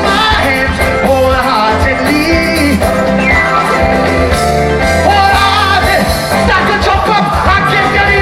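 Live band playing upbeat gospel soca, with a steady bass line and a singer's voice over the music.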